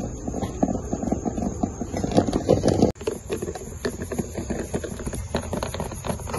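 Wooden hand churner (madhani) twirled between the palms in a steel pot of yogurt and milk, churning lassi: a fast, irregular clicking and knocking of wood against metal, broken off briefly about three seconds in.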